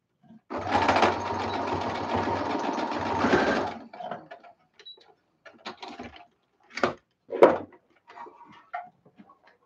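Brother electric sewing machine stitching steadily for about three seconds, then stopping. It is followed by scattered clicks and knocks, two of them louder, as the machine is handled and moved aside.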